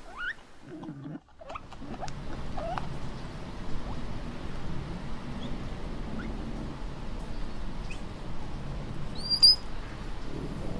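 Patagonian mara calls: a few short rising squeaks over a steady background hiss, with one sharp, louder high-pitched chirp near the end.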